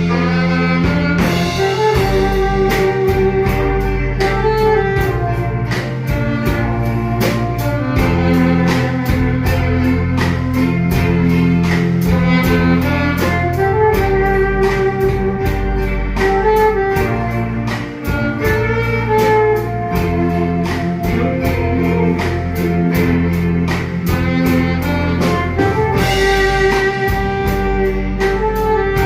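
Small band playing an instrumental Korean trot ballad: a saxophone carries the melody in long held notes over drum kit, keyboard, bass guitar and electric guitar, with a steady beat.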